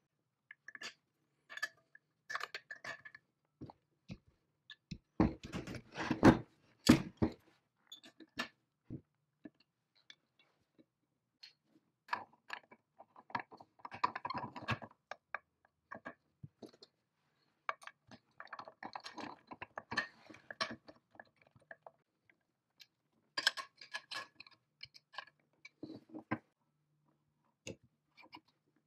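Hands reassembling the painted cast-iron parts of a vintage swing saw: irregular small clicks, taps and scrapes of metal on metal, in several busier spells, the loudest a few seconds in.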